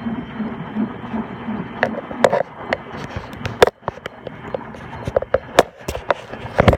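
Miele W1918 washing machine running: a low pulsing hum repeats about two or three times a second for the first two seconds, then irregular sharp clicks and knocks.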